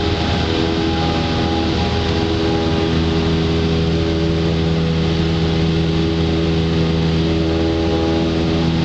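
Cessna 172's piston engine and propeller running steadily, heard inside the cabin as the aircraft climbs out after take-off.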